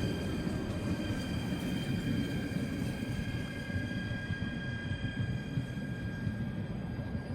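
A passing train's rolling rumble, with a steady high whine over it, both slowly easing off.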